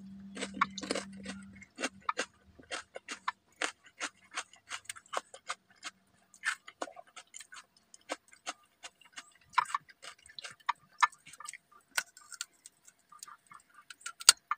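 Close-up chewing of raw cucumber: an uneven run of short, crisp crunches, a few a second, with a bite into a raw carrot near the end.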